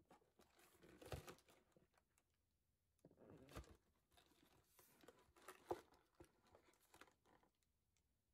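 Faint handling of a cardboard snack-cake box as it is turned over in the hands: fingers rubbing and tapping on the carton in three short stretches, with a couple of soft knocks.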